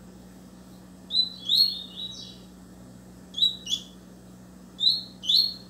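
Caged double-collared seedeater (coleiro) singing: three short phrases of quick, high, falling notes, the first about a second in, the next midway and the last near the end. A faint steady hum runs underneath.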